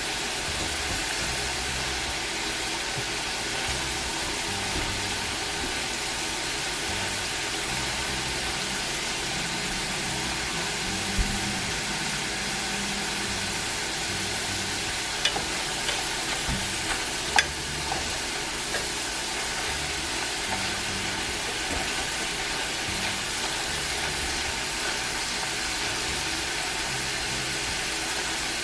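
Potato fries frying in hot oil: a steady sizzling hiss, with a few light clicks and taps around the middle.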